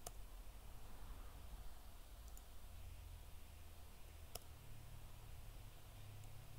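Two sharp computer mouse clicks, one at the start and one about four seconds later, with a few fainter ticks, over quiet room tone.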